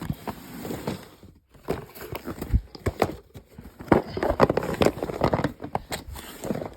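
Irregular knocks, thumps and rustling, as of someone moving about and handling things, with the loudest knocks about two and a half and four seconds in.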